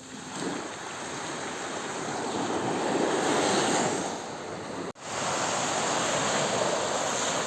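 Ocean waves surging and washing in, building to a peak about three seconds in. The sound cuts out for an instant about five seconds in, then comes back.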